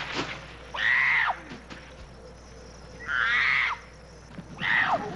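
Chimpanzees screaming in alarm at a mechanical leopard: loud, high calls of about half a second each that rise and fall in pitch, about four in all, with a longer, harsher scream about three seconds in.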